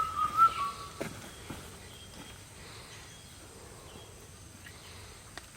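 A short whistled note at the very start, then faint outdoor ambience with a few soft clicks or steps in the first second or two.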